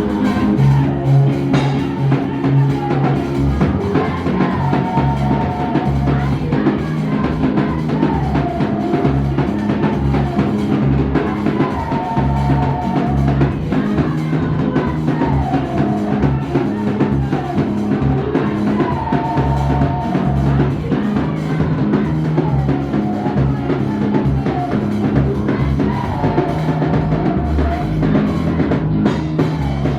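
Music with a steady drum-kit beat and a strong bass line, a short melodic phrase recurring about every three and a half seconds.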